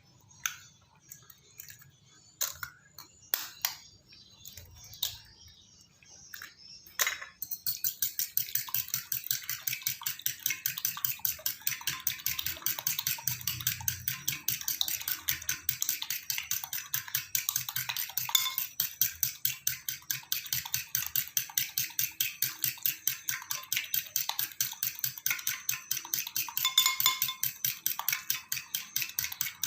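Kitchen utensil work: a few scattered clinks and knocks, then from about seven seconds in a fast, steady run of strokes, roughly five a second, as a utensil is worked rapidly against a dish or cutting surface.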